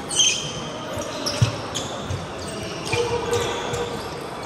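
Table tennis ball clicking irregularly off bats and table, with one sharp knock loudest about a second and a half in and a brief high squeak near the start.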